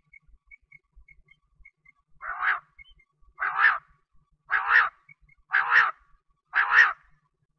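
Common quail (bater) calling: five loud calls, each about half a second long, repeated about once a second. Before them come a few faint, short, high peeping notes.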